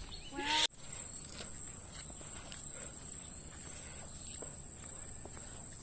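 Insects singing one steady, high, thin note over quiet outdoor background, with a few faint ticks. A brief voice at the start cuts off abruptly under a second in.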